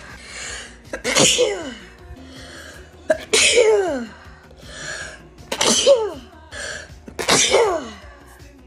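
A person sneezing four times in quick succession, about two seconds apart. Each sneeze has a quick breath in, then a sharp burst ending in a voiced "choo" that falls in pitch.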